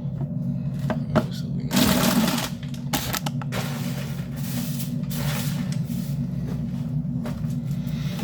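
Kitchen cooking and handling sounds: clicks and knocks of utensils and cookware over a steady low hum, with a short louder burst of hissing noise about two seconds in.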